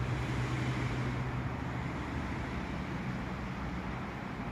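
Steady outdoor background noise: a constant low hum under an even hiss, with no distinct knocks or other events.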